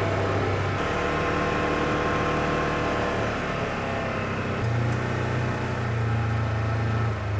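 Utility vehicle's engine running steadily as it drives, its pitch stepping up a little about halfway through.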